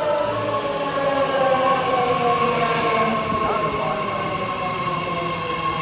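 New BART Fleet of the Future train pulling into the station and slowing. Its propulsion motors whine in several tones that slowly fall in pitch as it brakes, with a steadier higher tone above them over the rumble of the cars.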